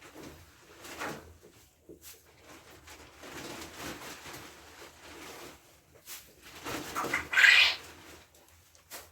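A goat nosing and chewing at a plastic bag, making scattered rustles and crinkles, with one louder crinkling burst about seven and a half seconds in.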